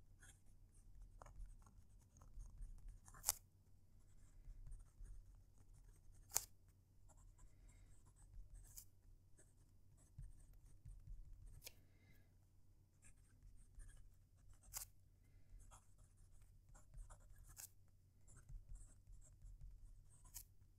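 Moonman P135 fountain pen with a small bent nib writing on paper, close to the microphone: faint, soft scratching of the nib in short runs, with a sharp tick about every three seconds. The nib writes smoothly with little feedback.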